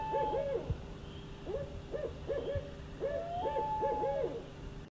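An owl hooting: runs of short rising-and-falling hoots, one run led by a longer held note, over a faint low hum. The sound cuts off suddenly near the end.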